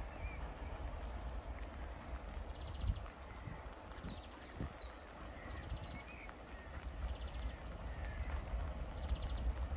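A songbird singing a run of about a dozen short, high, falling notes, roughly three a second, over a low steady rumble.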